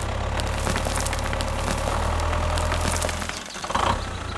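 A motor running steadily with a low hum and a rattle of small clicks. It drops out briefly about three and a half seconds in, then resumes.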